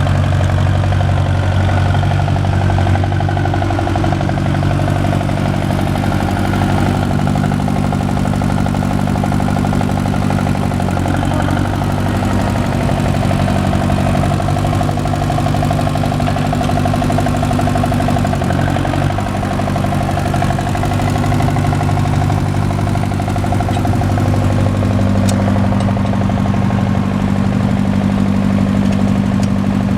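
1965 John Deere 1010 tractor engine idling steadily, its pitch wavering slightly a couple of times.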